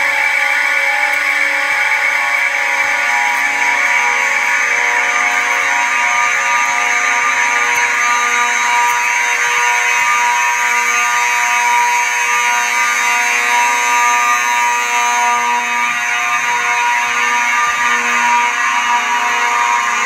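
Simplex fire alarm horns sounding continuously in a system horn test: a loud, steady buzzing blare that does not pulse or pause.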